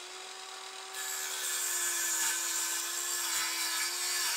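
Circular saw running at full speed, its motor whine steady, then about a second in the blade bites into a wooden board and a louder, rasping cutting noise takes over as it saws through.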